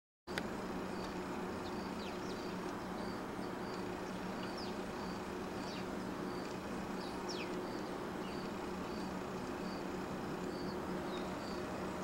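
Outdoor backyard ambience: a short high chirp repeating steadily about every two-thirds of a second, with a few quick downward-sliding calls over it and a low steady hum underneath.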